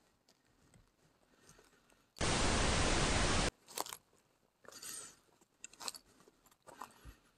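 A loud burst of even static hiss, just over a second long, starting and stopping abruptly about two seconds in. Around it, faint crunching and crackling of footsteps on dry grass.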